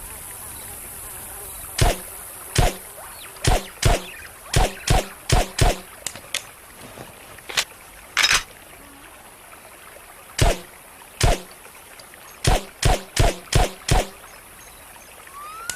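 Smith & Wesson Model 39 9mm semi-automatic pistol firing, about seventeen sharp shots. Some come singly and some in quick strings of two to five about a third of a second apart. A steady hiss lies underneath.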